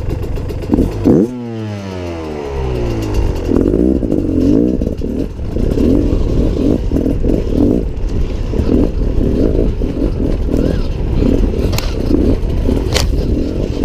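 Dirt bike engine, a Beta Xtrainer 300 two-stroke, picked up on the rider's helmet camera. About a second in the revs fall away sharply, then the engine is worked in short, uneven bursts of throttle over rocks, with clattering and two sharp knocks near the end.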